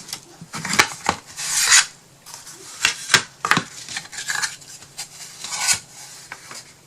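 Wooden craft pieces being handled and fitted together: irregular sharp clicks and knocks, with a couple of brief scraping rubs.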